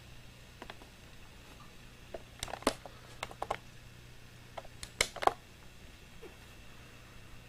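A dog and a cat play-fighting on a wooden floor: two short clusters of light clicks and taps, about two and a half and five seconds in, over a steady low hum.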